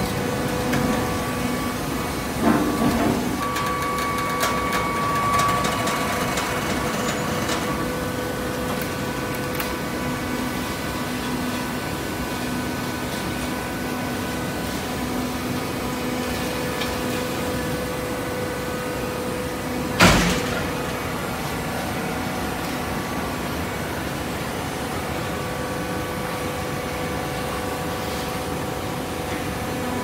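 Auto-tie horizontal hydraulic baler running: a steady motor and hydraulic pump hum, with a few knocks in the first seconds and a single loud bang about twenty seconds in.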